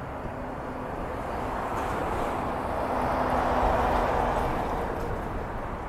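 A heavy truck and trailer carrying empty roll-off containers driving past, its rumble and tyre noise swelling to a peak about four seconds in, then fading.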